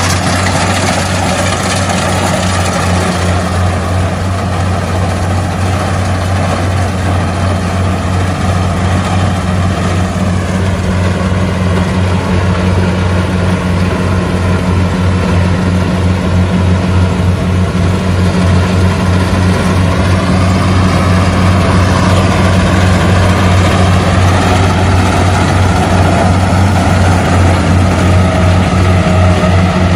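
Compact tracked rice combine harvester running steadily while harvesting: a constant engine hum with the dense noise of its cutting and threshing machinery, growing a little louder in the second half as it comes nearer.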